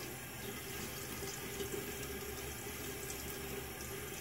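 Bathroom sink faucet running steadily into the basin while water is splashed onto a face.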